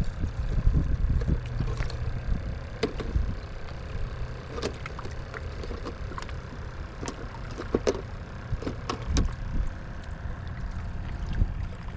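Wind rumbling on the microphone, with scattered small clicks and taps.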